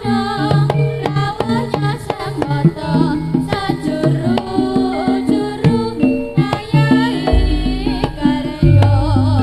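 Javanese gamelan music for a jaranan dance: rapid kendang hand-drum strokes over a melody of pitched metal percussion. A deep, low gong-like tone comes in about seven seconds in.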